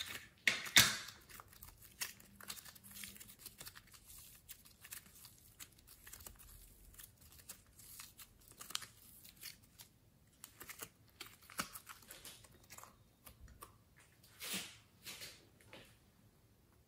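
Thick purple slime being squeezed and stretched by hand, giving irregular sticky crackles and tearing sounds. It is loudest about a second in and again about two thirds of the way through.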